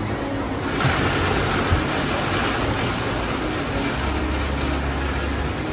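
Steady mechanical running noise with a low hum, from a boba pearl-making machine.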